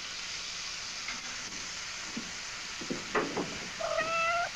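Food sizzling steadily in a frying pan on a stove. Near the end a cat meows once.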